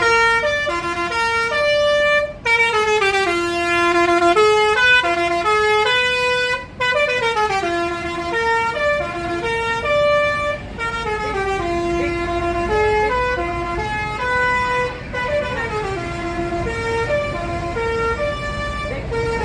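Indonesian bus 'telolet' musical air horn playing a tune: a run of changing horn notes, each held for about a third to half a second, with two brief breaks.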